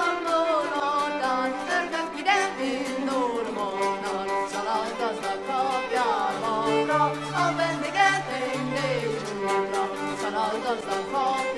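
Folk-style background music: a fiddle and singing over a steady low drone.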